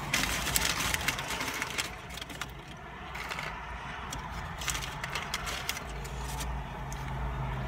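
Paper and cardboard food packaging crinkling and rustling as french fries are handled and moved into a container, loudest in the first few seconds and again about five seconds in. A steady low hum starts about six seconds in.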